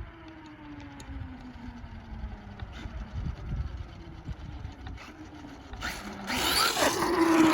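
Traxxas Maxx RC monster truck's electric motor whining, its pitch slowly falling as the truck slows. About six seconds in it accelerates hard, with a louder rush of drivetrain and tyre noise that is loudest near the end.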